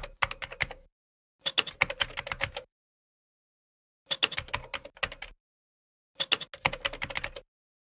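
Computer keyboard typing in four short bursts of rapid key clicks, each about a second long, with dead silence between the bursts.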